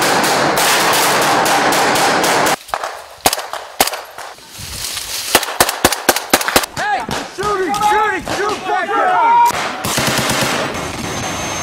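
Small-arms fire: a rushing noise at first, then a string of sharp, irregular rifle and machine-gun shots. Voices call out among the shots partway through.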